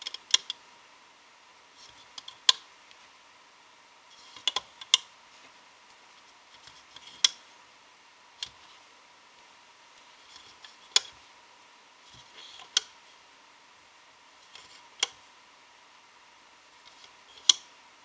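Rubber loom bands being stretched and snapped onto the pegs of a plastic loom: about ten sharp plastic clicks, a couple of seconds apart, with light handling rustle between them. A faint steady high hum lies underneath.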